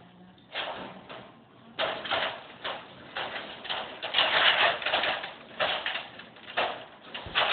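Irregular rattling and rustling as a wire dog crate is handled, coming in short bursts.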